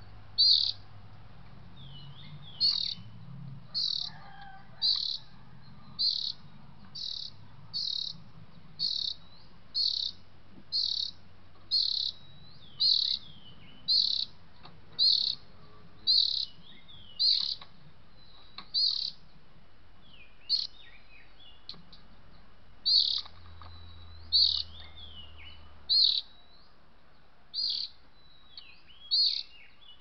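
A sharp, high bird call repeated about once a second with machine-like regularity, as from a looped lure recording of an oriental magpie-robin (kacer). Softer gliding calls of other birds come in between.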